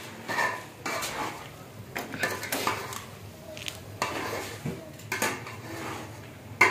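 Long metal spoon scraping and clinking against the sides of a large aluminium cooking pot as food is stirred, in irregular strokes.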